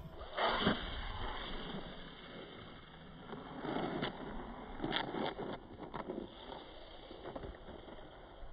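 Slowed-down, muffled playback of a Losi Promoto RC dirt bike's pass: a dull, uneven rumble with a few scattered knocks.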